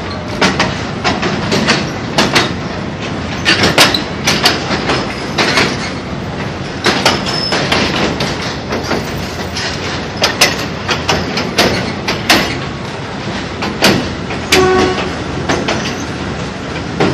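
Passenger train running along the track, heard from on board: steady rumble and rattle of the carriage with frequent sharp, irregular clacks and knocks from the wheels and couplings.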